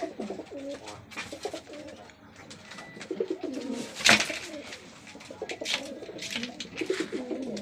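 Domestic fancy pigeons cooing repeatedly in a low, wavering warble, with a single sharp click about four seconds in.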